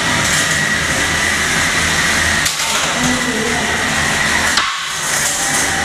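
Small electric motors of insect-class combat robots whirring steadily, a held high whine over dense mechanical noise, dipping briefly twice.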